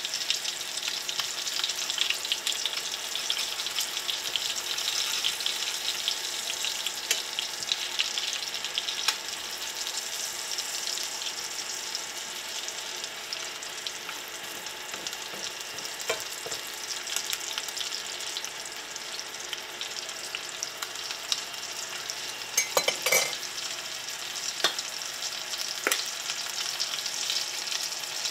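Scallops sizzling steadily in hot fat in a stainless steel skillet, with the occasional scrape and clink of a metal spoon against the pan as the fat is basted over them. A short run of sharp clicks comes near the end.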